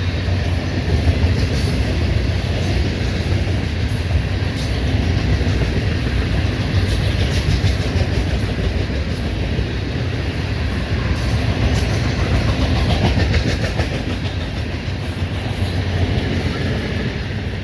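A train passing close by: a steady rumble of steel wheels on the rails, with many short clicks as the wheels run over the track joints.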